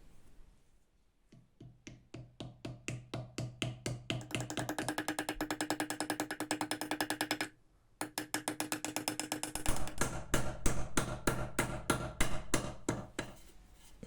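Background music with a fast, clicking percussive beat that speeds up, stops dead about halfway, then comes back with a heavier bass beat.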